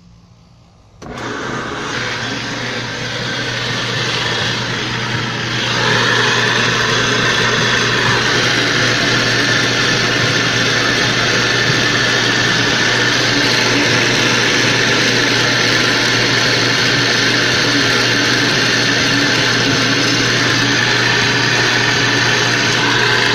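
Magic Chef Performa washing machine running at the start of a wash, with a loud, steady mechanical noise over a constant hum. The noise comes from the belt-driven water pump's damaged bearing, which was wetted by a leak from the worn pump. It starts about a second in and grows louder about six seconds in.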